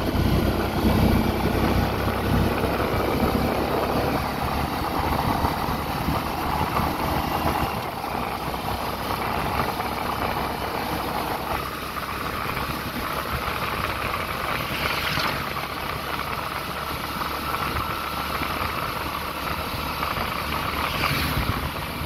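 Vehicle engine and road noise heard while travelling, a steady rumble whose low end is heavier in the first several seconds and then eases.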